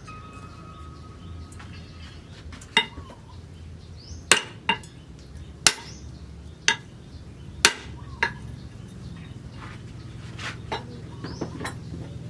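Hammer striking metal: about seven sharp metallic clinks at irregular intervals, over a low steady hum.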